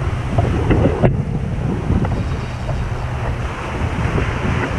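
Wind buffeting the microphone in a steady low rumble, over small surf waves breaking and washing up a sandy beach.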